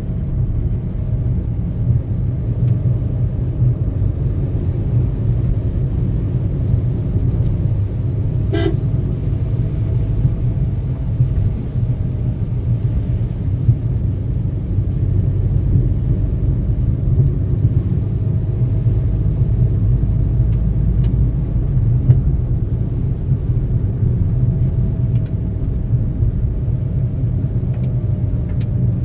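In-cabin sound of a Maruti Suzuki WagonR's 1.0-litre three-cylinder petrol engine running as the car drives, with a steady low rumble of engine and tyre noise on a wet road. A short click about a third of the way in.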